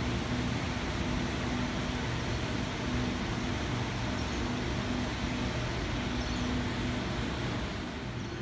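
Sydney Trains Waratah electric suburban train running away along the track, its steady rumble receding into a background hum.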